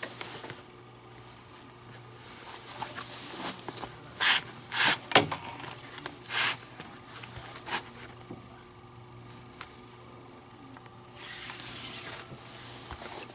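Leather lace being pulled through the web and lacing holes of a Kubota Slugger infielder's glove, leather rubbing on leather: several short strokes about four to eight seconds in and a longer pull near the end.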